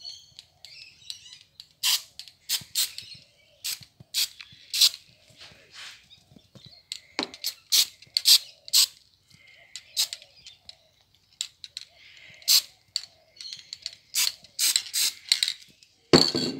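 Aerosol can of clear gloss varnish sprayed in many short hissing bursts, on and off, onto model railway ballast and track. A louder knock comes just before the end.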